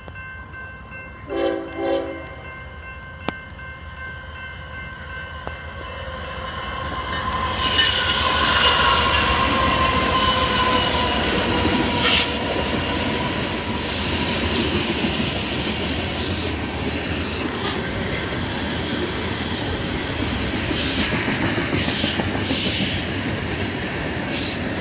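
Freight locomotive's horn held in one long multi-note chord that drops in pitch as the train passes, with two short lower blasts about a second and a half in. The horn gives way to the heavy rumble and rail clatter of a long grain train rolling by, with occasional sharp high clicks from the wheels.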